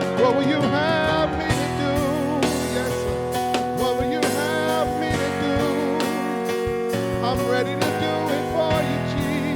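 Church worship music: sustained chords with a wavering melody line over them and regular drum hits keeping a steady beat.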